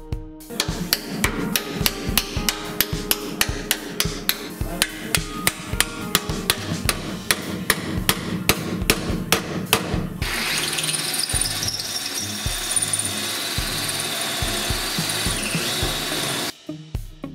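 Rapid hammer blows on a chisel, about three a second, splitting apart the spot-welded sheet-steel panels of a car's front frame rail. About ten seconds in, a power drill takes over, running steadily for about six seconds to drill out spot welds, then stops suddenly.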